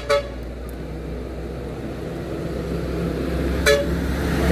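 A motor vehicle engine running and growing gradually louder, with short horn toots: a quick double toot at the start and another near the end.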